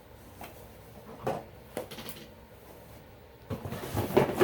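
A few light knocks as things are handled, then from about three and a half seconds in a busier clatter of fire alarm devices and packaging being moved around in a cardboard box while it is rummaged through.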